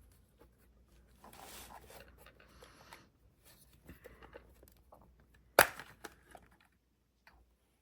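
Soft rustling and handling noises, with one sharp click about five and a half seconds in.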